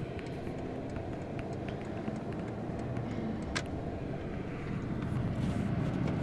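Steady low road and engine rumble heard from inside a moving car's cabin, with a few faint clicks, growing slightly louder near the end.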